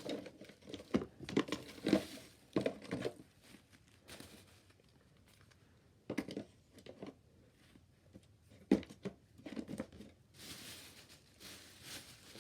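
Crinkling and rustling of a gift bag and packaging being handled as items are packed in, coming in irregular bursts with a quiet pause in the middle and a steadier crinkle near the end.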